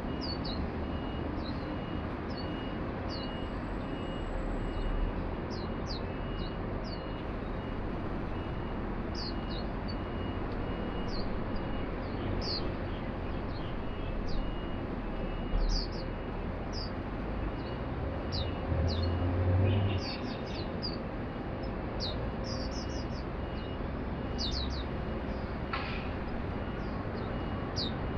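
White-eyes calling with many short, high, downward chirps, scattered singly and in quick clusters, over a steady background hum of city traffic, with a brief louder low rumble a little before two-thirds through.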